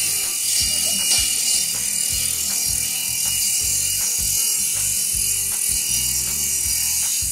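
Satay-skewer sharpening machine running as a bundle of bamboo skewers is pushed through it: a steady hiss with a low hum and sharp clicks about twice a second.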